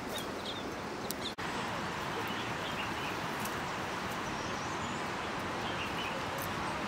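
Outdoor rural ambience: a steady hiss with scattered faint bird chirps and a few small clicks. The sound cuts out briefly about a second and a half in.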